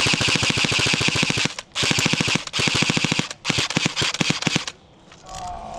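Airsoft rifle firing full-auto in four long bursts of rapid, evenly spaced shots, then falling quiet near the end.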